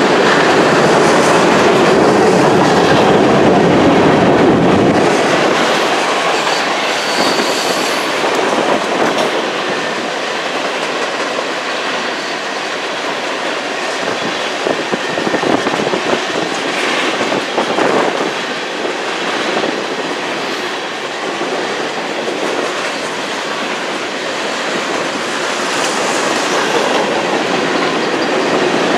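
Freight train of tank cars and covered hoppers rolling past close by on a curve, a steady loud rumble of wheels on rail, louder for the first few seconds. A brief, faint high wheel squeal comes about seven seconds in.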